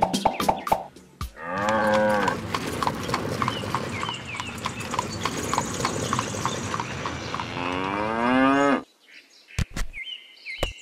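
Cattle mooing: one long moo about a second in and another, rising, near the end, over an even run of clicks. Birds chirp in the last second.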